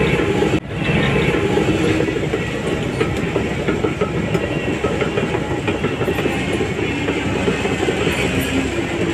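Shantui DH17C3 crawler bulldozer working under load: a steady engine drone with its steel tracks clanking and rattling. There is a brief break in the sound about half a second in.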